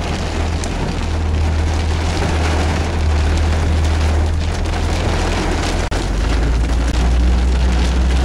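Heavy thunderstorm rain pelting a car, heard from inside the moving car over the steady low rumble of the vehicle.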